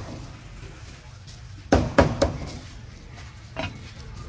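Cleaver chopping roasted meat on a thick round wooden chopping block: a quick run of three solid chops about two seconds in, then a lighter chop near the end.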